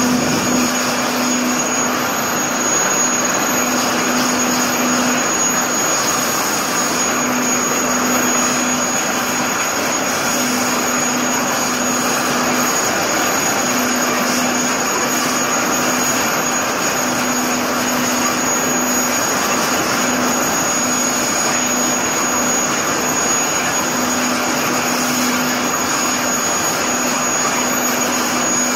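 250-bar high-pressure water jet blasting boiler tubes: a loud, steady hissing rush with a thin high tone running through it, and a low hum that cuts in and out every second or two.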